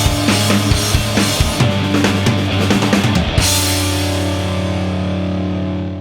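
Rock music with a steady drum beat. About three and a half seconds in, the drums stop and a final chord rings out and fades away.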